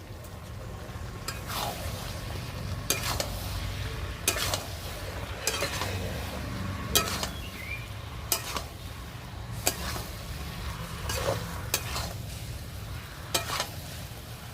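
Chicken and raw jackfruit pieces sizzling in oil and spice paste as they are sautéed, with a spatula stirring them and scraping and knocking on the pan about once every second or so.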